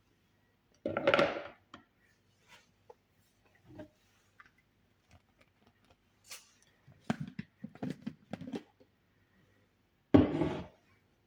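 Kitchen utensils and containers being handled: scattered knocks and clinks, with two louder clatters about a second in and near the end.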